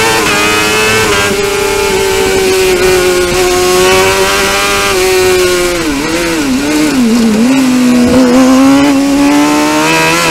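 Suzuki GSX-R750 inline-four motorcycle engine in a Crosskart, heard onboard, screaming at high revs on the straight. About six seconds in the pitch drops in a few wavering dips as the driver brakes and downshifts, then it climbs steadily again in a lower gear.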